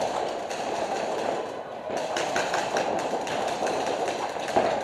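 Paintball markers firing in many quick, irregular pops, with paintballs smacking into inflatable bunkers, over a steady background rush of noise.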